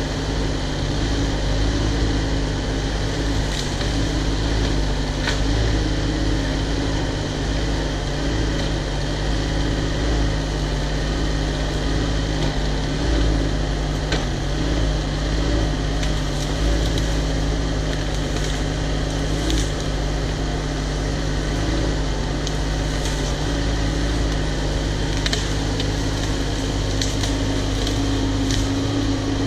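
Cat 304 mini excavator's diesel engine running at a steady speed, with a few light clicks over it.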